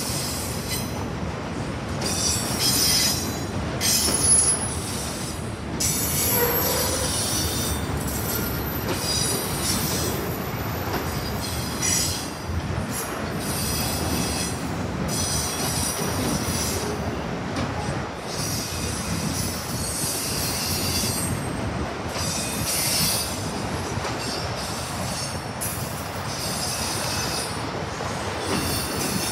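Autorack freight cars rolling past: a steady noise of steel wheels on rail, with a higher hiss that swells and fades every few seconds.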